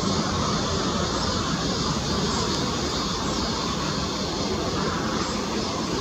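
Jet airliner engines running, a steady even rush of noise with no rise or fall.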